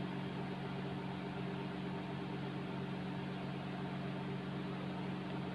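Steady low hum with several pitched tones, unchanging throughout, under a faint hiss.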